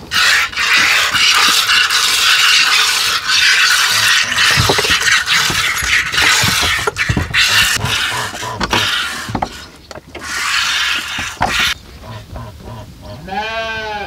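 A rasping, pulsing hiss of liquid streaming and spraying, which stops about two-thirds of the way through and briefly resumes. Then a goat bleats once near the end.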